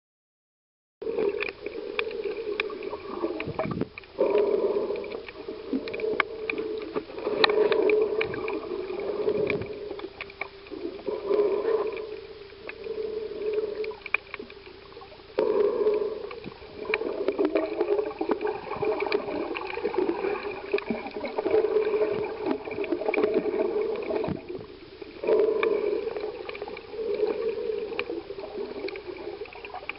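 Muffled water sloshing and gurgling around an underwater camera, starting about a second in and coming in uneven surges with brief lulls every few seconds.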